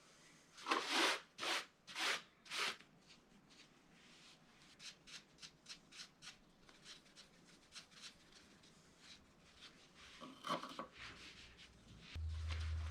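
Four short rubbing strokes in quick succession, then a run of light ticks and taps from hand work in a workshop. A cluster of knocks follows about ten seconds in, and a low steady hum starts near the end.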